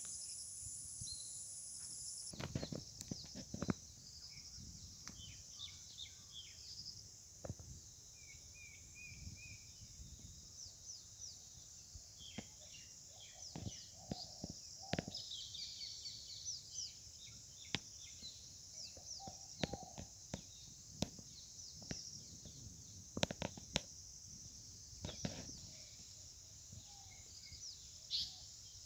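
Steady high-pitched insect drone with many short bird chirps and calls scattered over it. Now and then there are soft thumps.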